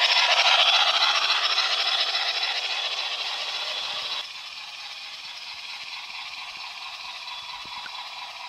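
Metal wheels of O gauge model passenger cars rolling and rattling over three-rail track, loud as the cars pass close and fading as they move away. About four seconds in it drops abruptly to a fainter, steady rolling noise as the train runs along a curve further off.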